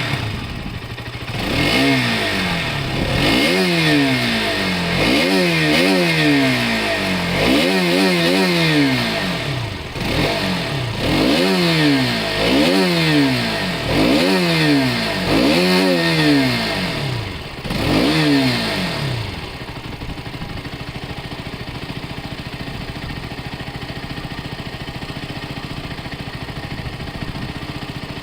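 Motorcycle engine, just started, revved in over a dozen quick blips of the throttle, each a rise and fall in pitch about a second apart. After that it settles to a steady idle.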